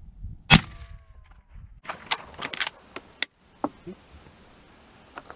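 Winchester 1886 lever-action rifle being handled between shots. A sharp crack with a short metallic ring comes about half a second in. A second or so later comes a quick run of metallic clacks and clinks as the lever action is worked and the spent case is ejected, ending in one sharp click.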